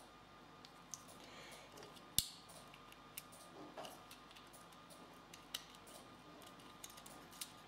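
Scattered small clicks and taps of a disassembled plastic 3D printing pen being handled as its parts are worked loose, with one sharp click a little after two seconds in.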